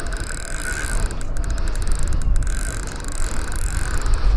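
Spinning fishing reel working under load with a hooked fish on the line, a steady mechanical running of its gears, over a low wind rumble on the microphone.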